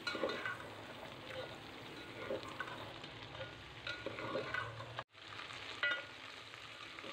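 Cut okra and fried onions sizzling in hot oil in a metal pot while a metal spoon stirs them, with short scrapes and clinks of the spoon against the pot every second or so. The sound drops out briefly about five seconds in.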